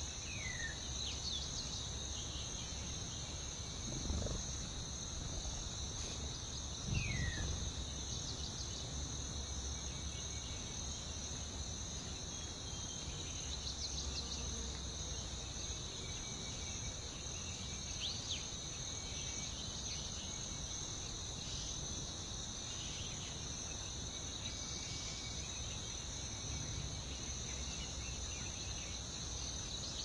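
A steady high insect chorus drones in two even bands throughout. A few short falling chirps come near the start, and two brief low thumps come about four and seven seconds in.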